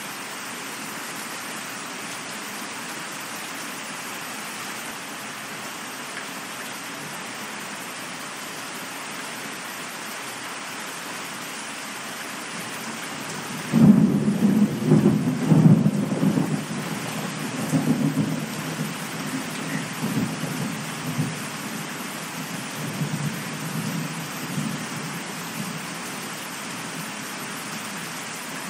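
Steady rain with a thunderclap about halfway through that starts suddenly, then rolls on in swells for about ten seconds and fades away.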